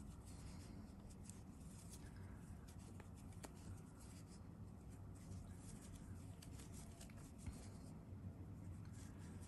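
Faint rustling and light ticks of a crochet hook and yarn being worked through double crochet stitches, over a low steady hum.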